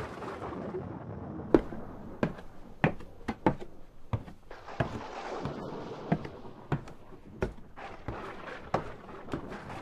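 Footsteps on a hard floor or stairs: a run of sharp, irregularly spaced knocks and thuds, about one or two a second, with a brief rushing noise midway.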